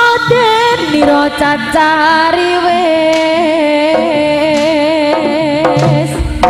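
Live jaranan ensemble music, a loud wavering melody line held over the accompaniment, with deep drum beats coming in near the end.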